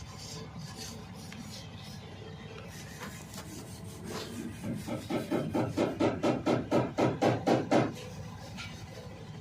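A tool scraping or rasping on wood with quick back-and-forth strokes, about four a second, starting about halfway in and stopping abruptly about three seconds later.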